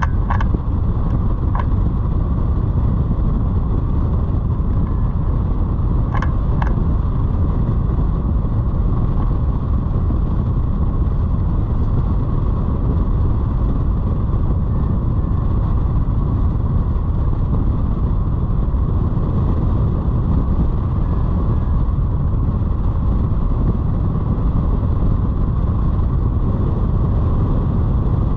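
Steady rush of wind over the camera microphone of a hang glider in flight, heaviest in the low end, with a few short ticks in the first seven seconds.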